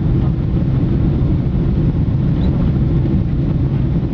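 Steady low rumble of a Boeing 767-300 heard from inside the passenger cabin: engine and airframe noise with no sudden events.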